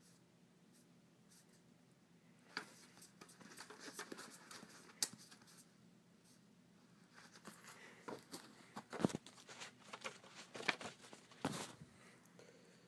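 Faint rustling and scattered light clicks as a gloved hand handles a paper-covered roll of tape on fabric, starting about two and a half seconds in, with a few sharper ticks.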